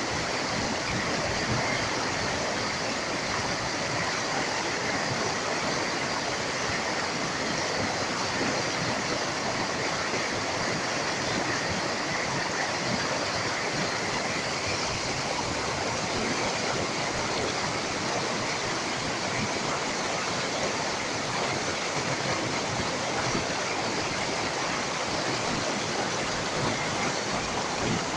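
Mountain stream rushing over boulders in small rapids: a steady, even rush of water.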